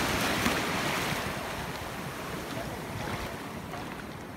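Surf washing in the shallows, with wind noise on the microphone; the wash is loudest for the first second or so, then eases off.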